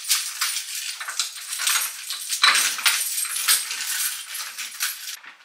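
A bunch of keys jangling and clinking against a vending machine's door lock while the lock is worked and the door is pulled open. The clatter is dense and irregular and stops abruptly near the end.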